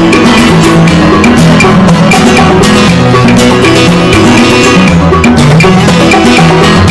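Upbeat background music with percussion and a moving bass line, loud and steady throughout.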